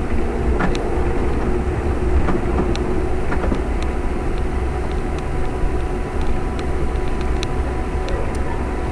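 Steady engine and road rumble inside a moving long-distance bus, heard from the passenger cabin, with scattered faint ticks.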